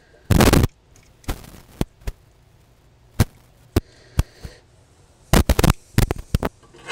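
Metal hand tools clicking and knocking on a Morris Minor engine's valve rocker gear as a spanner and screwdriver set a tappet clearance and tighten the adjuster locknut. There is a short rattle near the start, then single sharp clicks, and a quick run of knocks near the end.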